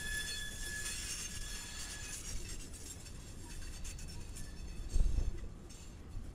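Freight train cars rolling past: a low rumble with clinks and clanks, steady high squealing tones for the first two seconds, and a short heavy thump about five seconds in.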